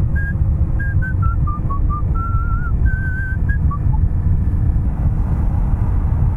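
Someone whistling a short tune: single notes that step down and then climb back up, some held with a waver, stopping about four seconds in. Underneath runs the steady rumble of wind and the engine of a Honda CRF250L motorcycle at road speed.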